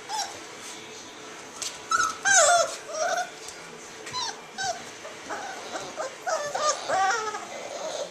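Four-week-old Cane Corso puppies whimpering and yipping: a string of short, high whines that bend up and down in pitch, the loudest about two and a half seconds in, with several calls overlapping in the last few seconds.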